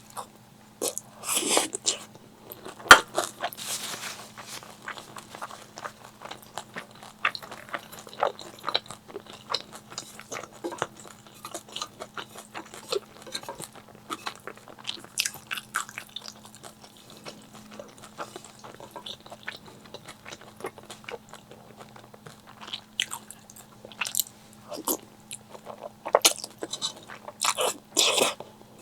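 Close-miked eating: crunchy bites and steady chewing of fried food, with a few louder bites near the start and near the end.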